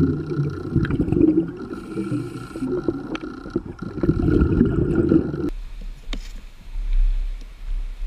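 Underwater sound: dense low gurgling and bubbling with scattered clicks and a faint steady high whine. It cuts off abruptly about five and a half seconds in, leaving only a low rumble.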